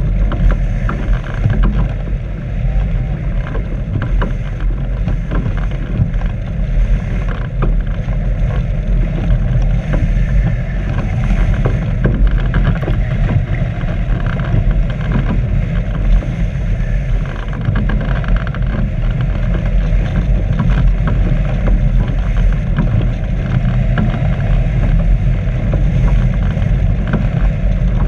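Steady wind rush and low rumble of the airflow over a wing-mounted GoPro on a hang glider in flight.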